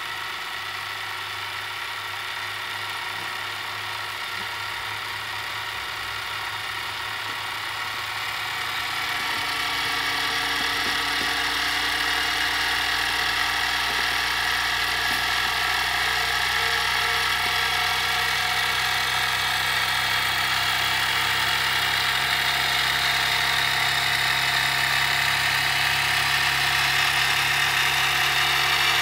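Jensen #65 toy live steam engine running steadily under steam from its electrically heated boiler, turned up to 110 volts. The running sound grows louder about eight to ten seconds in and then holds steady.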